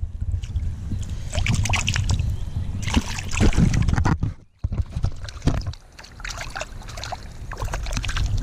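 Water sloshing and splashing around a landing net held in a river as a brown trout is handled in it, over a steady low rumble. The sound drops out briefly a little past the middle.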